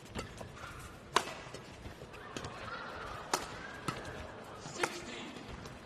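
Badminton rally: rackets strike the shuttlecock with a series of sharp cracks, the loudest about a second in, while court shoes squeak briefly on the floor.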